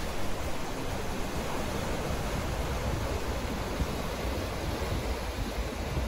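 Sea surf washing and breaking over shoreline rocks: a steady rushing noise.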